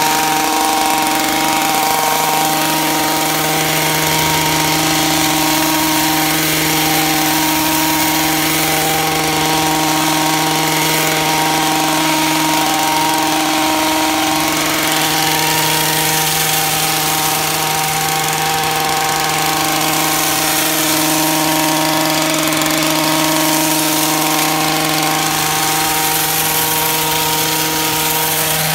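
Stihl two-stroke pole hedge trimmer engine running steadily at an unchanging speed, with a high buzzing hum and a hiss.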